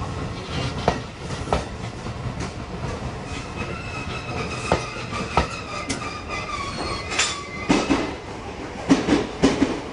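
Electric commuter train rolling past close by, its wheels clicking irregularly over rail joints. From a few seconds in, a thin high wheel squeal sounds over the rolling noise as the last car leaves on the curve.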